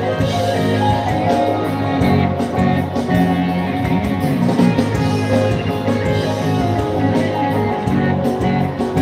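Live band music played over a concert sound system, with guitar prominent.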